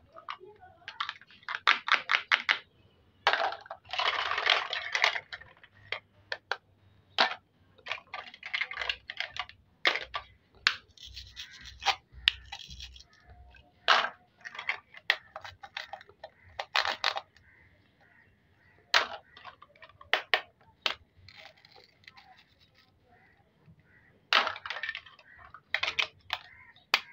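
Hard plastic toy fruits and vegetables being cut with a plastic toy knife on a plastic cutting board and pulled apart by hand: a long run of irregular clicks, taps and clatters, some in quick rattling clusters, with a longer scraping stretch about four seconds in.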